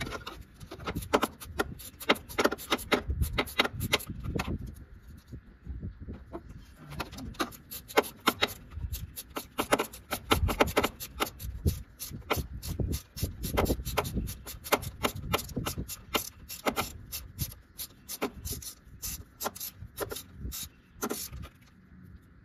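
Hand ratchet clicking in quick, irregular runs of sharp ticks as bolts are worked on.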